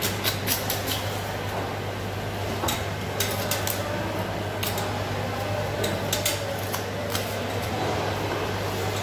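Butcher's knife cutting up a hanging goat carcass, with irregular sharp clicks and knocks as the blade strikes bone and joints, several in quick clusters. A steady low machine hum runs underneath.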